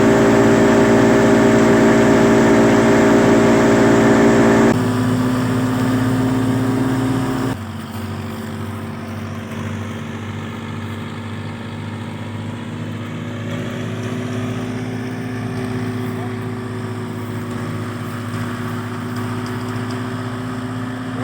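Tractor-driven wheat thresher running steadily, a constant engine-and-machinery hum. Its level drops suddenly about five seconds in and again a few seconds later, then it runs on evenly.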